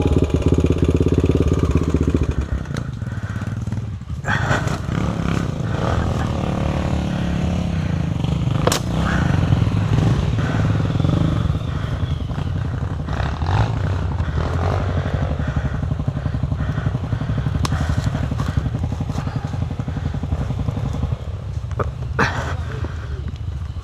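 Single-cylinder four-stroke trail motorcycle engine running on the trail, its note rising for a few seconds in the middle, with a few knocks and clatters over the rough ground.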